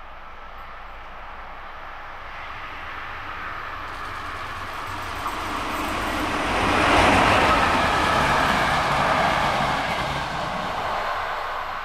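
Passing train: a Deutsche Reichsbahn class 211 electric locomotive hauling three passenger coaches runs through without stopping. The noise of the wheels on the rails builds as it approaches, is loudest about seven seconds in as it passes, then fades away.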